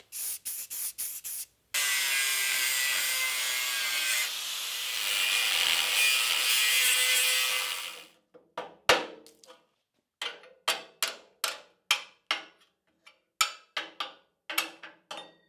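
A power grinder cutting into a rusted steel mounting tab on a Land Rover chassis crossmember for about six seconds, then a run of sharp ball-peen hammer blows, steel on steel, knocking the old tab loose.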